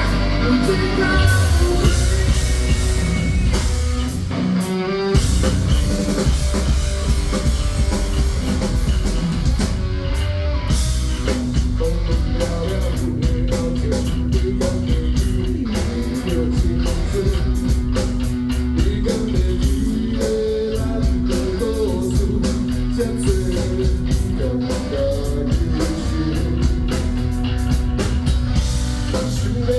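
Rock or metal music with electric guitar and a drum kit playing steadily.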